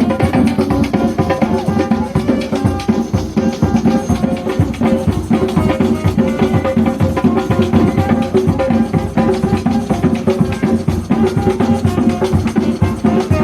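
Instrumental interlude of a hymn played by a band with a drum kit and percussion keeping a fast, steady beat under sustained chords, no singing.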